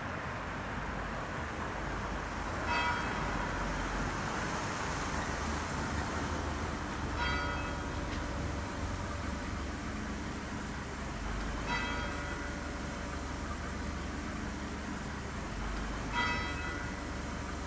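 A bell struck four times, slowly and evenly, about every four and a half seconds, each strike ringing on over a steady rumbling background like traffic.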